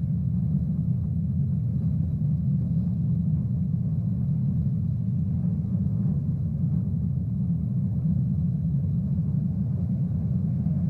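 A deep, steady rumble, the sound given to a volcanic eruption on the soundtrack of documentary footage of the 1980 Mount St. Helens eruption.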